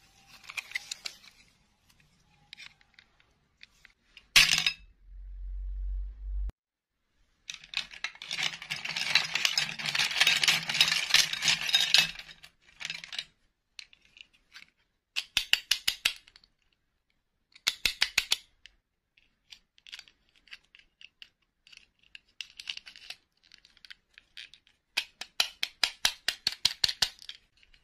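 Small hard plastic doll parts clicking, clinking and rattling as they are handled, in quick trains of taps with one longer dense stretch of clatter. One sharp loud click comes about four seconds in, followed by a short low hum.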